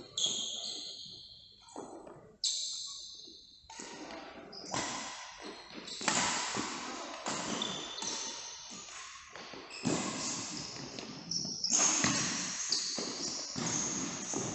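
Badminton play: sharp racket hits on the shuttlecock every second or two, with short high squeaks between them.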